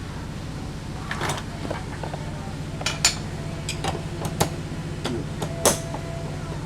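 Steel transmission parts and hand tools clinking and knocking, about half a dozen sharp clanks at irregular intervals, the last one ringing briefly.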